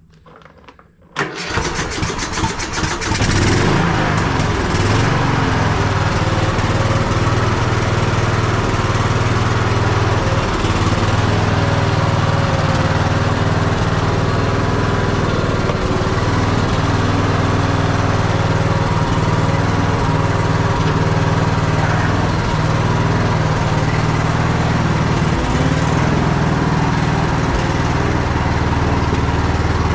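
Troy-Bilt Bronco riding tractor's engine cranked on the starter with the choke on, catching within a couple of seconds and then running steadily. This is its first start after sitting unused for a year, on old fuel.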